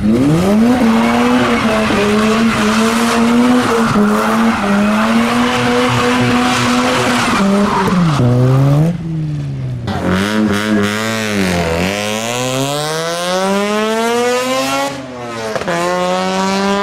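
Mazda RX-8's twin-rotor rotary engine held at steady high revs through a burnout, with tyres squealing, for about eight seconds. After a break, a rotary engine drops in revs and then climbs in one long rising pull. Near the end, another clip starts with a rotary holding a steady high note.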